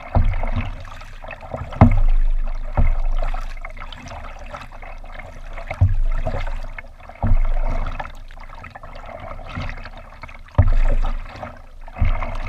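Small waves slapping against a kayak's hull, about seven hollow thumps at irregular intervals, with water lapping and trickling in between.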